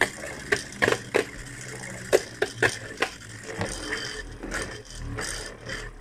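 Beyblade Zero-G attack-type spinning top (Thief Phoenic E230GCF) whirling around a plastic stadium, clacking against the bowl in irregular sharp knocks that come several a second at first and get fainter after about three seconds. Its lively, aggressive movement is what marks it as an attack-type top.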